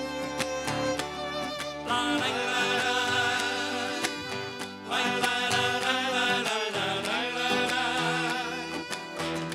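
Gaúcho folk band playing an instrumental passage, with accordion, violin and guitar.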